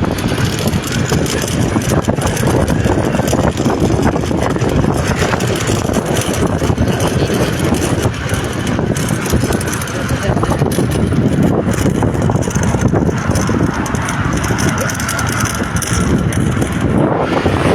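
Steady vehicle engine and road noise.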